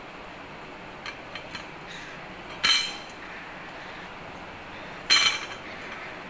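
A cockatiel's toy clinking and rattling against metal: a few light taps, then two louder metallic rattles about two and a half seconds apart, each ringing briefly.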